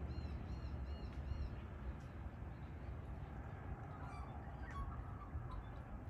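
Birds chirping: a quick run of short, high chirps in the first second and a half, then a few more calls around four to five seconds in, over a low steady rumble.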